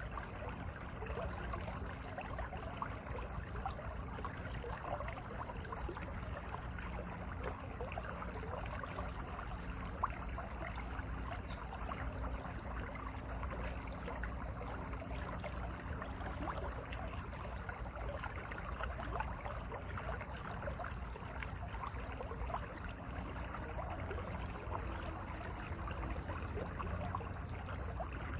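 Mountain valley stream running, a steady babbling and gurgling of flowing water that keeps an even level throughout.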